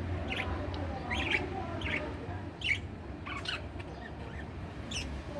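Pet budgie chirping: short, high chirps about once a second.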